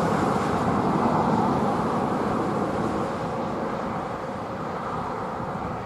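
Steam locomotive A 428 working a passenger train at a distance: a steady, blurred exhaust noise with no distinct beats, slowly fading.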